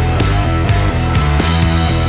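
Rock backing music with a steady beat and distorted guitar.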